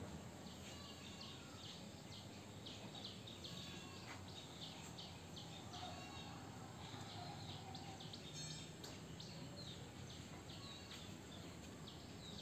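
Faint chirping of small birds: many short, high calls repeating irregularly, over a low steady background noise.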